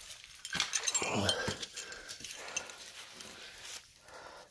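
A man grunting and breathing hard with effort as he climbs over rock, with sharp scrapes and clicks of hands, shoes and gear on the rock. The effort sounds and scraping are loudest about a second in, then trail off into softer rustling.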